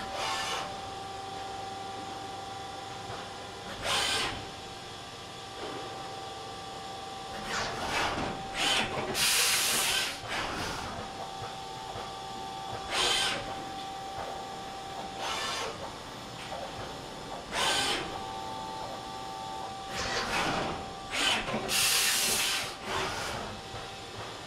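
HORKOS NJ60 vertical machining center running with a steady hum and a fixed whine, broken by repeated loud bursts of hissing as the spindle works along the aluminium block, two of them lasting a couple of seconds.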